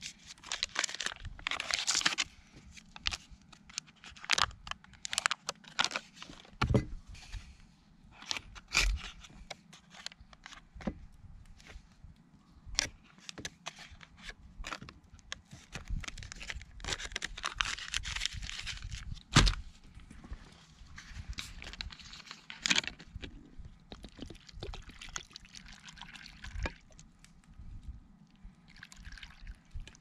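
Camp food preparation at a stainless steel pot: scattered clicks and knocks of potato pieces and a knife against the pot, crinkling of a foil butter wrapper, and water from a plastic bottle poured into the pot near the end.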